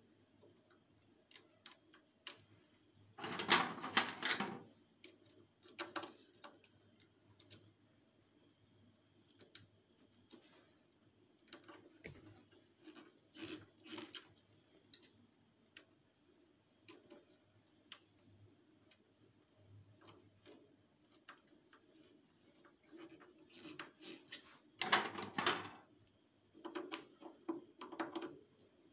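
Screwdriver work on an inverter's screw terminal block as crimped wire ferrules are pushed in and tightened: scattered small clicks, taps and scrapes of metal and plastic. Two louder rustling, scraping spells come about three to four seconds in and again near twenty-five seconds, over a faint steady hum.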